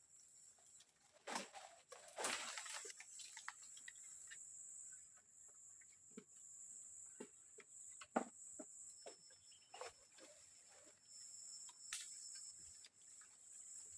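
Faint scattered knocks and rustles, the sharpest a few seconds in and again about eight and twelve seconds in, over a steady high insect buzz.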